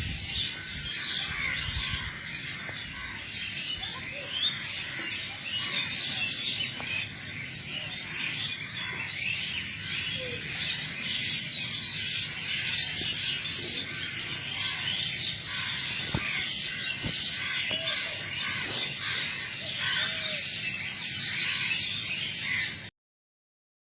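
Dawn chorus of many birds chirping and calling at once, a dense, continuous twittering that cuts off suddenly near the end.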